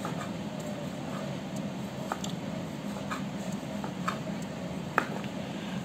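Kitchen knife cutting cooked chicken into small pieces on a cutting board: light taps of the blade on the board, roughly once a second.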